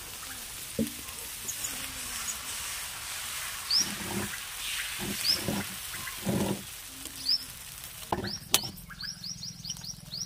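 Dosa batter sizzling on a hot griddle as it is poured and spread, with small birds chirping, the chirps coming in a quick run near the end. A few low knocks sound in the middle, and one sharp tap comes a little after eight seconds.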